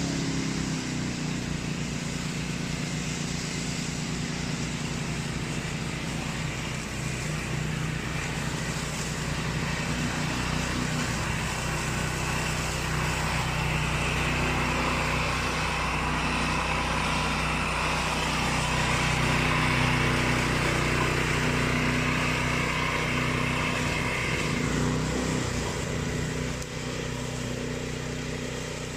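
Remote-control flail mower running steadily, its engine note constant throughout. A higher whirring hiss grows louder from about halfway through and falls away again near the end.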